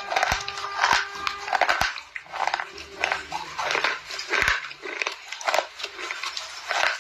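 Slate pencils being bitten and chewed, crisp dry crunches about twice a second.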